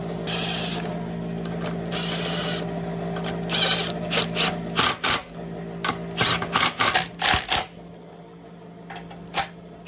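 Milwaukee M18 cordless impact driving fasteners on an ATV's battery tray and body panel: two short whirs in the first few seconds, then a run of sharp rattling clicks as it hammers the bolts tight.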